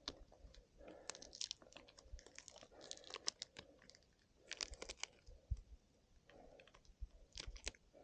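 Faint scattered clicks and rustling as gloved hands open and handle a small tubeless tyre-plug tool to repair a puncture.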